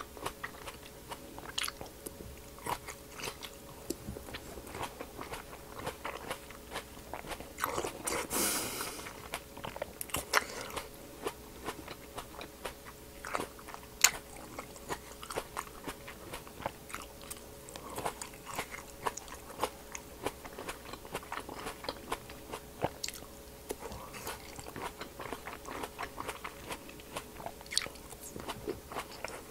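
Close-miked biting and chewing of crisp green apple grapes: many short wet crunches and mouth clicks, one sharp loud crack about fourteen seconds in, and a brief louder rush of noise about eight seconds in.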